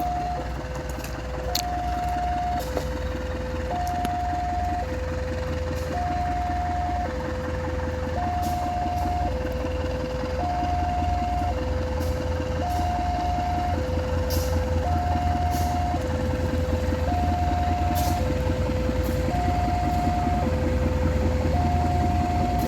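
Railway level-crossing warning alarm sounding its two-tone signal, a lower and a higher tone alternating evenly, each held about a second, warning that a train is coming. A steady low rumble runs underneath and grows slightly louder near the end.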